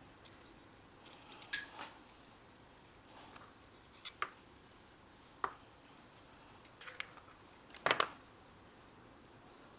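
Scattered light clicks and taps, a few at a time, the loudest a quick double click about eight seconds in.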